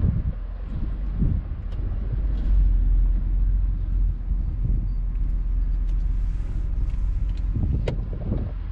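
A vehicle driving along a dirt trail: a steady low rumble of engine and tyres, with a few brief knocks and rattles from the rough ground.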